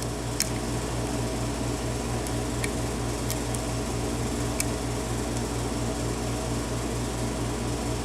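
Steady electric fan-like hum with a low pulsing several times a second, and a few faint sharp ticks of lock picks working the pins of a pin-tumbler lock cylinder.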